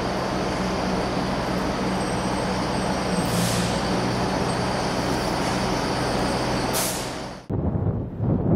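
ScotRail diesel multiple unit running as it moves slowly through the station, with two short hisses of air from its brakes about three and a half seconds apart. Near the end the sound cuts abruptly to wind buffeting the microphone.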